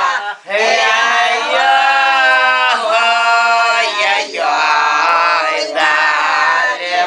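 Elderly women singing a Russian folk song unaccompanied, in long drawn-out phrases with short breaks for breath.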